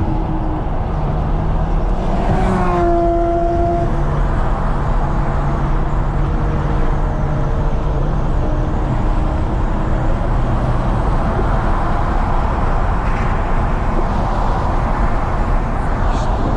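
Car driving on the road: a steady rush of road, wind and engine noise. A pitched engine note rises and holds for about a second and a half, starting about two and a half seconds in.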